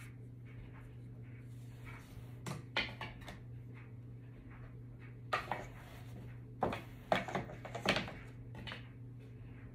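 Ashford rigid heddle loom in use: wooden knocks and clacks as the heddle is shifted and beaten against the weft, in small clusters a few seconds apart, over a steady low hum.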